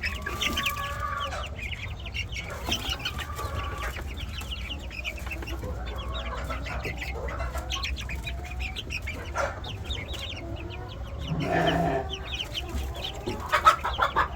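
A flock of poultry clucking and chirping, with many short calls overlapping and one louder, longer call a little before the end.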